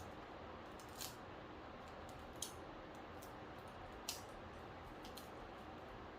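A few short, sharp clicks, about one every second or so, over a steady faint hiss.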